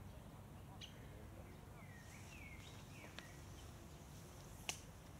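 Quiet outdoor background with a steady low rumble, a few short bird chirps about two to three seconds in, and small clicks, the sharpest one near the end.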